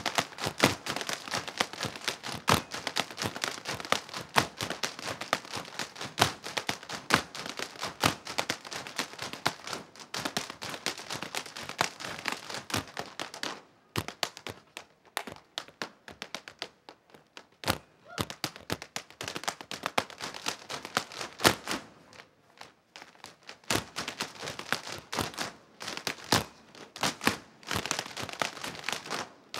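Irish dance hard shoes striking the stage floor in rapid, rhythmic taps and clatter from several dancers, with no music. About halfway through the taps thin out to sparse single strikes, then come thick and fast again for the last several seconds.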